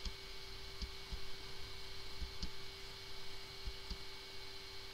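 Quiet background hum with a steady faint whine over a light hiss, broken by scattered soft low clicks.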